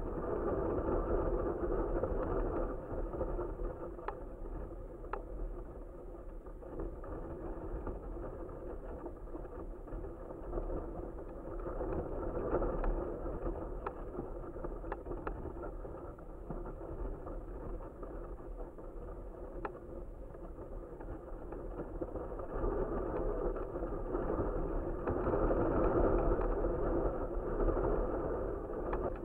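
Wind rushing over an action camera carried aloft on a flying kite: a steady rush with a low rumble that swells and eases twice, with a few faint ticks.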